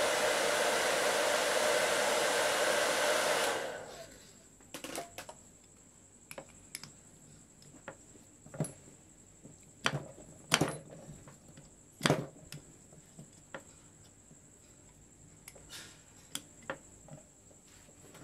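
Electric heat gun blowing steadily at a car alternator's pulley nut, switched off about three and a half seconds in. After that, scattered metallic clinks and taps as a socket and wrench are fitted onto the pulley nut.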